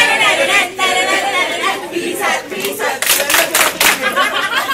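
A group of people chanting and shouting together in unison, with a run of sharp handclaps about three seconds in.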